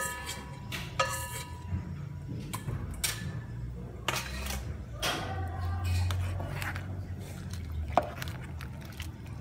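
A metal utensil clinking against a steel cooking pot of simmering soup, several separate clinks that each ring briefly, over a low steady rumble.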